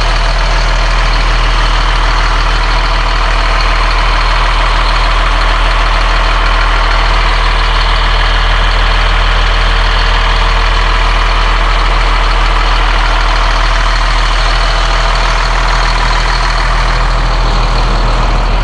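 Caterpillar C7 7.2-litre turbo diesel engine of a school bus idling steadily.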